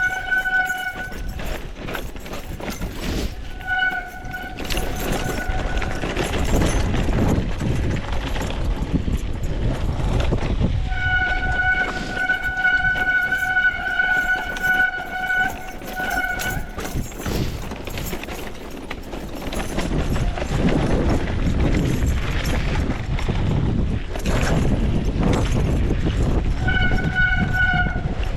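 Mountain bike riding down a rough trail: constant rattle, tyre and wind noise, broken four times by a steady high squeal from the brakes as they are applied. The longest squeal lasts about six seconds, in the middle.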